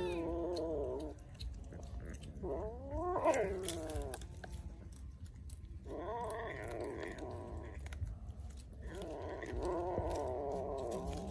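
Cats meowing in four long, wavering, drawn-out calls while they crowd a bowl of raw fish, with faint short clicks between the calls.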